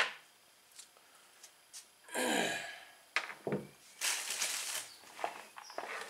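Hands handling parts on a workbench as a removed ignition coil is set aside. A sharp click comes right at the start, then rustling and a few light knocks; the rustles come about two seconds and about four seconds in.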